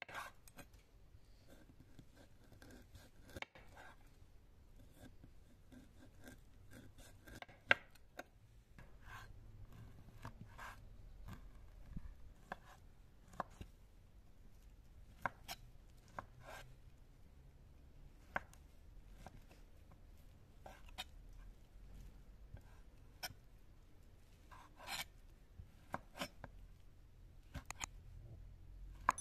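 Chef's knife cutting sheep tail fat into small cubes, the blade clicking down onto a stone cutting board in quiet, irregular strokes roughly once a second.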